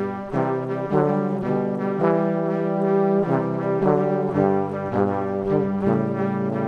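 Outro music: brass ensemble playing sustained chords that change every half second or so.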